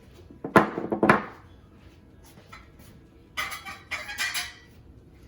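Kitchen utensils and dishes being handled: two sharp knocks about half a second apart, then about a second of scraping a little past the middle.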